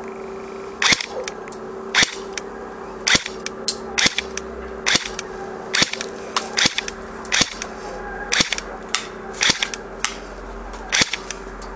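Cyma Desert Eagle electric airsoft pistol, a non-blowback AEP, firing single shots in semi-automatic mode about once a second. Each shot is a sharp snap followed by one or two fainter ticks.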